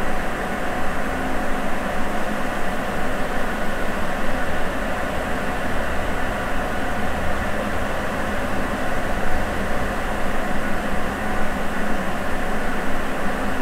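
Sapporo Municipal Subway 9000 series rubber-tyred train running at a steady speed, heard from inside the car: an even rumble with a few held tones, unchanging throughout.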